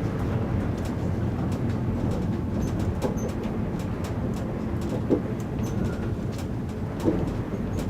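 Chiba Urban Monorail car, a rubber-tyred suspended monorail, running along its track with a steady low rumble and a short knock about every two seconds.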